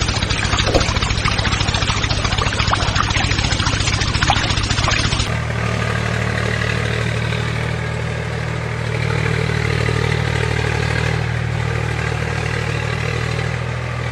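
A small engine idling with a fast, even chug. About five seconds in, the sound cuts abruptly to a smoother, steadier engine drone.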